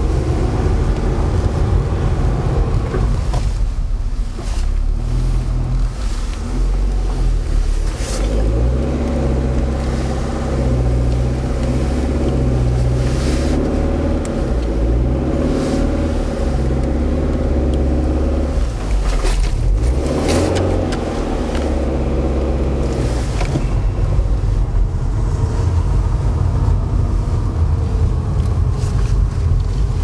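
Car reversing: its engine runs at low revs under light throttle, the pitch rising and falling a few times as it moves. There are a couple of short bursts of noise, about eight seconds in and again about twenty seconds in.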